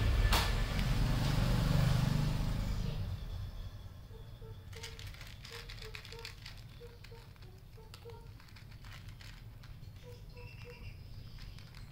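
A cat crunching dry kibble from a plastic tub, a run of small, irregular crisp crunches. A low rumble fades out over the first three seconds.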